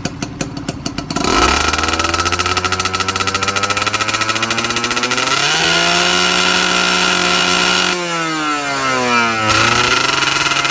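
Kawasaki Leostar motorcycle engine through an aftermarket tune pipe exhaust. It pops unevenly for about a second, then catches and runs steadily. About five seconds in the revs rise and hold, then fall away and settle back to a lower running note near the end.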